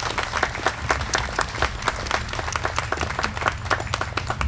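An audience applauding: many hands clapping irregularly and continuously.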